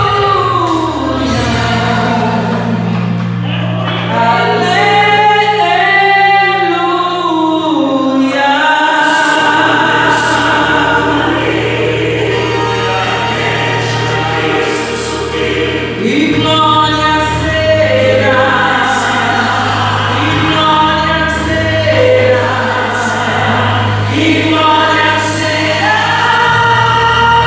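Gospel hymn sung by voices over an instrumental accompaniment with steady sustained low notes.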